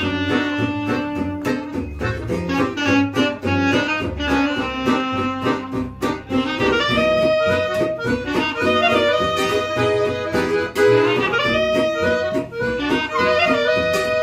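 Small acoustic band playing an instrumental tune: accordion and clarinet carry the melody over a steady beat of plucked guitar and double bass, with long held notes in the second half.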